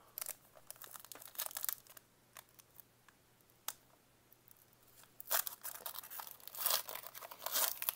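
Trading cards and their wrapping handled by hand: light card slides and clicks at first, then a stretch of crinkling and tearing of packaging from about five seconds in.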